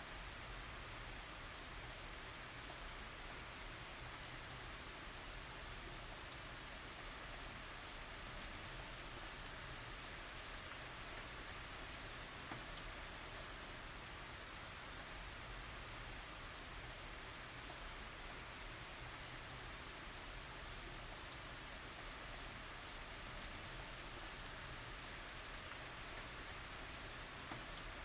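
Light tropical rain falling steadily: an even hiss of rain on surfaces with faint scattered drop ticks.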